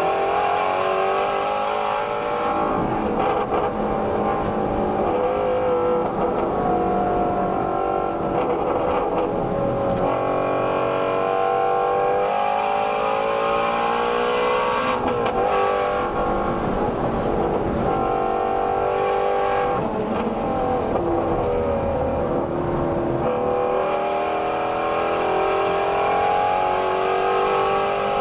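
2017 Ford Shelby GT350's 5.2-litre flat-plane-crank V8 under hard acceleration, picked up by a microphone at the exhaust. The revs climb in third gear to about 6,000 rpm, drop with an upshift about halfway, then climb again in fourth after a brief dip.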